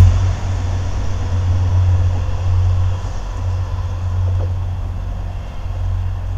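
Irish Rail 29000 class diesel multiple unit pulling away, its diesel engines giving a low rumble that fades slowly as it moves off.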